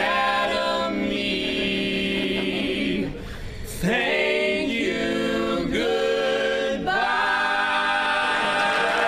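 A small mixed group of one woman and three men singing a capella in close harmony, holding long chords. After a short break about three seconds in, they sing a series of sustained chords, each one swooping into pitch.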